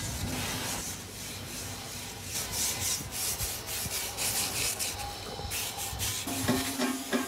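Wire brush and cloth scrubbing the surface of a freshly cast iron truck brake drum in repeated rasping strokes, with a few knocks near the end.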